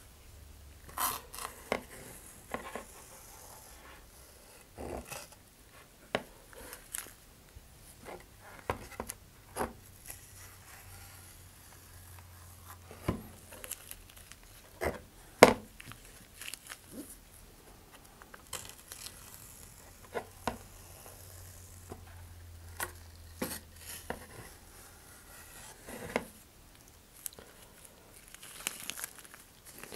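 Gloved hands handling a paper towel and a model rocket's body tube and fins on a cutting mat: scattered light knocks, taps and crinkles, the loudest knock about halfway through.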